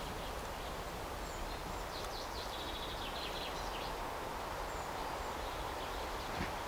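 Outdoor country ambience: a steady, even hush with small birds chirping and trilling, and one soft knock near the end.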